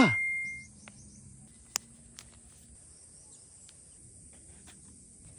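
A loud sound with a falling pitch dies away in the first second. It is followed by faint, steady outdoor ambience with a high insect drone and a sharp click a little under two seconds in.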